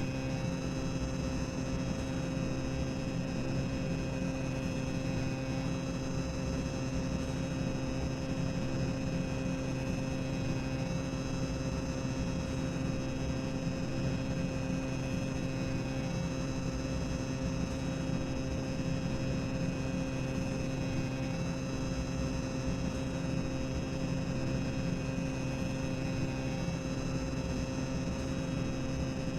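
Boiler room machinery ambience: a steady low mechanical hum with several constant tones over an even hiss, unchanging throughout.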